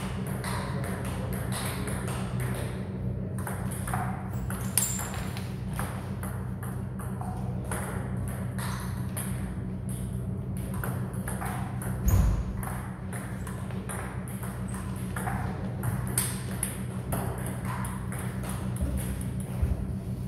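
Table tennis ball being hit back and forth in a rally, a quick run of sharp clicks off the bats and table about every half second, over a steady low hum. One louder low thump comes about halfway through.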